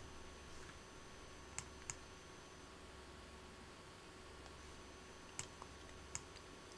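Faint computer mouse button clicks, about five single clicks scattered over a few seconds, including a close pair, over a faint steady low hum.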